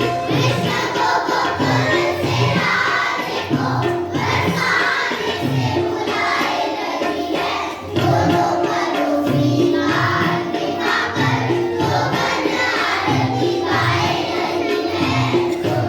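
Children's choir singing a Hindi devotional song to Krishna, with musical accompaniment over a steady beat.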